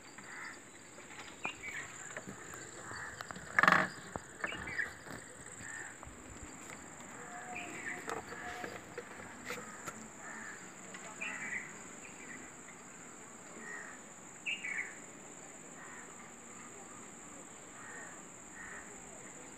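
Steady high-pitched insect drone, with scattered short chirps and one sharp knock about four seconds in.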